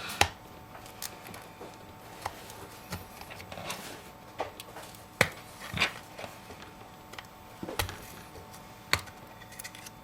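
Irregular sharp clicks and taps, about ten, from a pry tool working between an iPhone 5's screen assembly and its aluminium shell as the screen is pried open.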